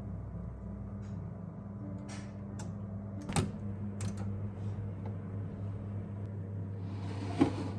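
A few light clicks and knocks over a steady low hum.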